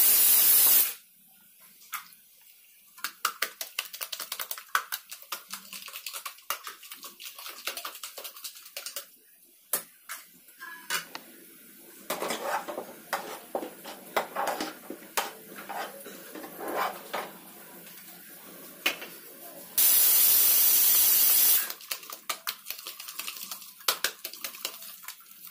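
Metal utensils clinking, knocking and scraping against a cooking pot in irregular strokes. A loud steady hiss cuts in briefly at the start and again for about two seconds near the end.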